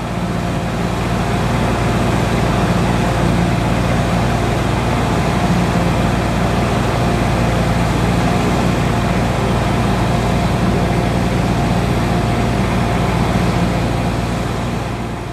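An engine running steadily at a constant speed, with a strong low hum.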